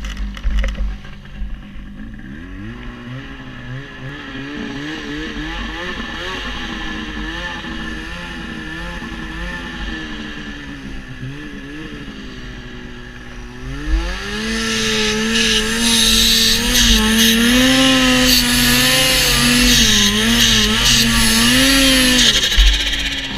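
Turbocharged two-stroke Ski-Doo Summit XP snowmobile engine working through deep snow, with a few knocks in the first second or two. The engine note then rises and falls with the throttle. About fourteen seconds in it climbs sharply and holds at high revs, loud and hissy, until it drops away just before the end.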